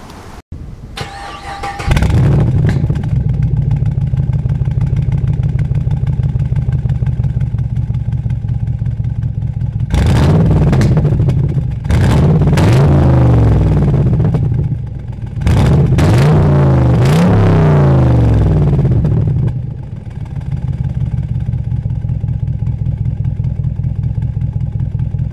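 2010 Chevrolet Camaro SS's 6.2-litre V8 through a Borla exhaust, cold-started: the starter cranks briefly and the engine catches about two seconds in and idles steadily. It is revved up and down several times between about ten and twenty seconds in, then settles to a quieter idle.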